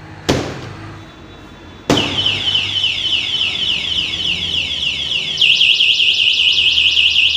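A sharp knock, then about two seconds in a Hero Electric Optima electric scooter's anti-theft alarm siren goes off, set off by tampering with the locked scooter. It repeats falling electronic sweeps, several a second, and switches to a faster, louder pattern about five and a half seconds in.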